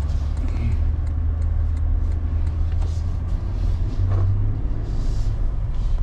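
Low steady rumble of engine and road noise inside the cab of a 2022 Toyota Tundra pickup driving slowly away, swelling slightly about four seconds in.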